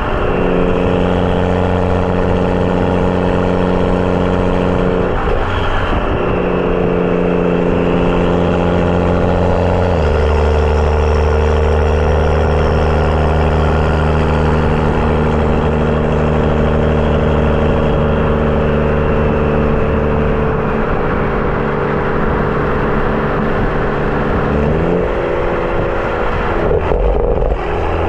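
BMW F30 335i's turbocharged N55 inline-six running through a catless downpipe and M Performance exhaust while driving, a steady exhaust tone. The pitch steps down about ten seconds in and rises briefly near the end.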